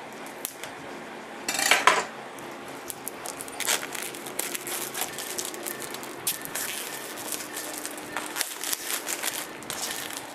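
Plastic shrink-wrap being cut and pulled off a DVD case with a hunting knife: crinkling plastic with many small scraping clicks, and a louder rustle about a second and a half in.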